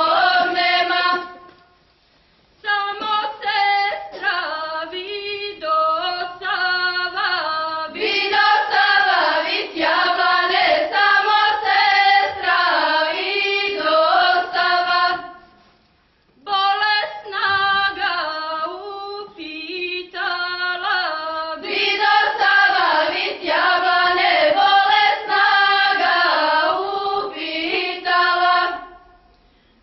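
Women's voices singing a traditional Montenegrin folk song unaccompanied, in long melismatic phrases broken by short pauses for breath.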